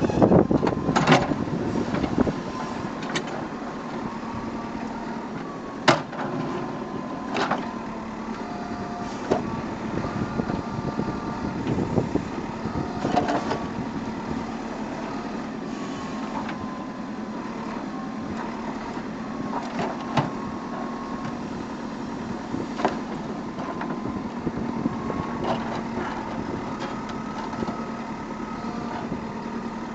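JCB backhoe loader's diesel engine running steadily while the backhoe arm works, with a hydraulic whine that rises and falls and a few sharp knocks. Louder for the first couple of seconds, then settling.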